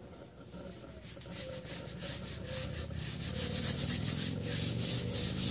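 A hand rubbing a vinyl sticker down onto a car's rear window glass through its transfer tape, a dry rasping rub in quick repeated strokes that grows louder after the first second or so.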